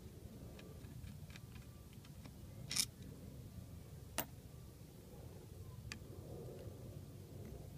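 Hand screwdriver backing screws out of an alternator's voltage regulator: faint small metal clicks and ticks, with two louder sharp clicks, one just under three seconds in and another about a second later.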